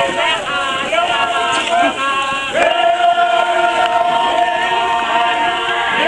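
A crowd of dancers chanting together in a traditional Papuan dance chant. A little before halfway in, the voices settle on one long held note.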